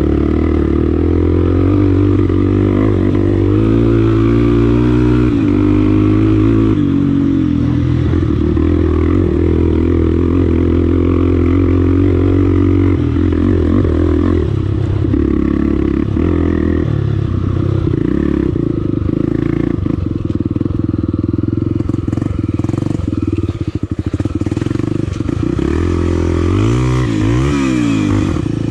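Single-cylinder engine of a Honda Tornado 300cc trail motorcycle running under way, its pitch rising and falling with the throttle. There are quick revs up and down near the end.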